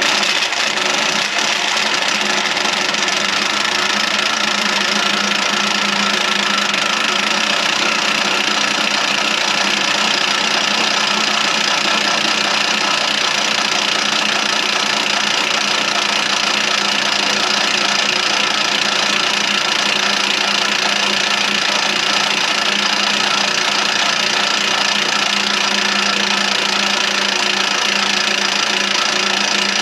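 Diesel truck engine running steadily, with a knocking clatter and no change in speed.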